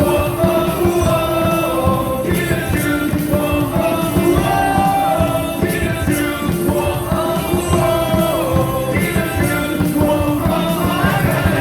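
A baseball cheer song over the stadium sound system: loud music with singing.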